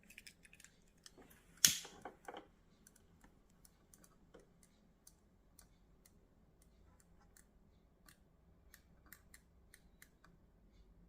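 Small clicks and ticks from hand work on headlight wiring and connectors: one sharp click just under two seconds in, a couple more right after, then scattered faint ticks.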